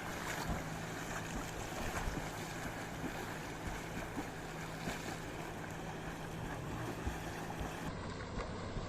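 Steady rushing water with small scattered splashes.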